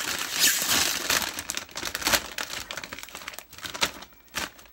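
Potato chip bag crinkling as it is handled, dense and loud for the first two seconds, then thinning to scattered crackles near the end.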